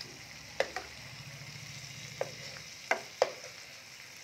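Fish curry sizzling gently in a non-stick frying pan while a metal spatula stirs it, with several sharp taps and scrapes of the spatula against the pan, the loudest a little after three seconds in.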